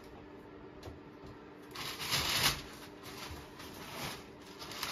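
Rustling of packaging as boxed items and white packing material are handled and pulled out of a shipping carton, loudest about two seconds in and again near the end.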